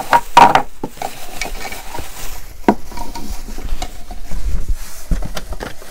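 Packaging rustling and crinkling as items are handled and pulled from a box, with scattered light clicks and a few dull knocks.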